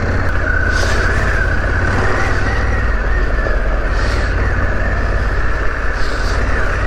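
Harley-Davidson Pan America's 1250 cc V-twin engine running steadily as the motorcycle is ridden off-road, with a few brief hissing sounds over it.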